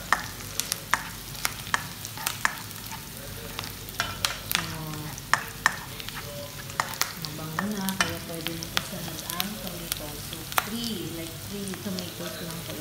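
Chopped onion and garlic sizzling in hot oil in a nonstick frying pan, stirred with a plastic spatula that knocks and scrapes against the pan in many sharp clicks over a steady hiss.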